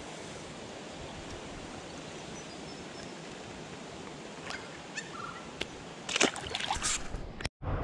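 Steady rush of flowing river water. A few sharp clicks come through about two-thirds of the way in, then a louder burst of crackling noise, and the sound cuts out abruptly just before the end.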